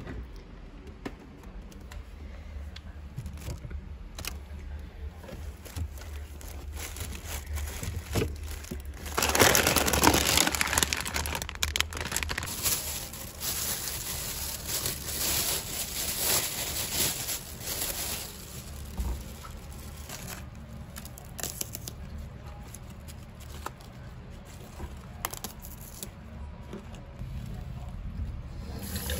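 Plastic bag crinkling and rustling as groceries are handled, loudest for a couple of seconds about ten seconds in, with scattered clicks and knocks of things being set down.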